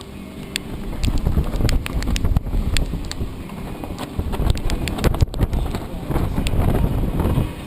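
Hurricane wind gusting hard over the microphone in an uneven rumble, with scattered sharp knocks and clicks. It rises about a second in and drops off just before the end.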